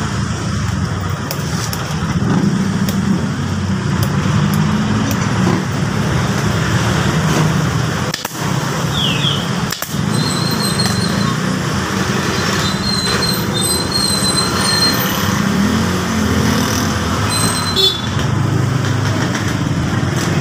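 Steady rumble of motor traffic and engines.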